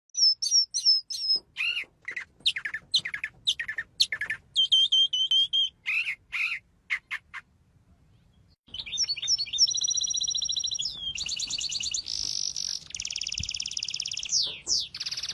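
Small songbirds singing: short separate chirps and whistled notes, then after a brief quiet break about halfway through, a continuous song of fast rattling trills and sweeping whistles.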